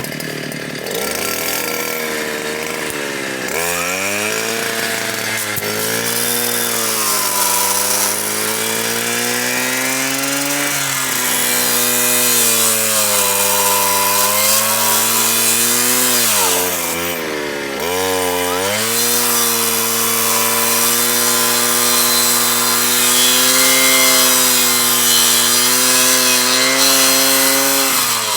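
Stihl 120 R power head spinning a circular saw blade fitted with chainsaw teeth and cutting wood. The motor's pitch sags each time the blade bites into the cut and climbs back as it frees, with one deep drop about two-thirds of the way through.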